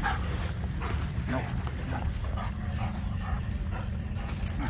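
Dog whining and panting, short high whines repeating every half second or so, over a steady low rumble.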